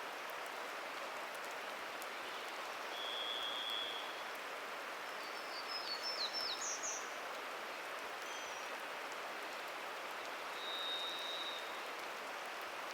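Steady patter of rainwater dripping from the forest canopy, with a varied thrush giving two long, even whistled notes at slightly different pitches, one about three seconds in and one near the end. Between them comes a brief high twittering from another small bird.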